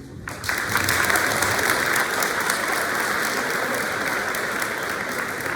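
Audience applauding, beginning just after the start and continuing steadily.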